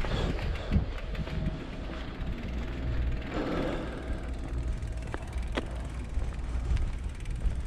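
Mountain bike rolling along a dirt trail, recorded on a bike-mounted action camera: a steady low rumble from the tyres with scattered clicks and rattles.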